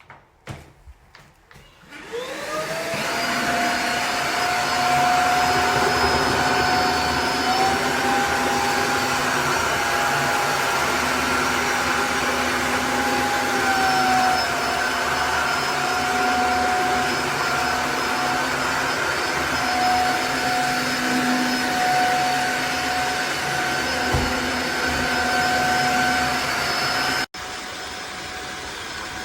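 Tineco Floor ONE S5 cordless wet-dry vacuum mop starting up about two seconds in, its motor whine rising quickly, then running steadily with a high whine. For several seconds its pitch rises slightly, then settles back. Near the end the loud running cuts off abruptly to a quieter, duller sound.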